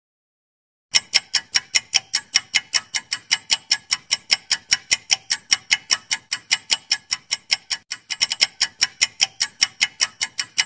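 Clock-tick sound effect for an on-screen quiz timer: sharp, even ticks at about five a second, starting about a second in after digital silence.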